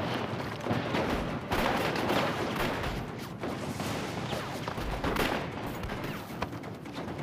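Gunfire in a firefight: many rifle and pistol shots going off in irregular quick succession, overlapping one another.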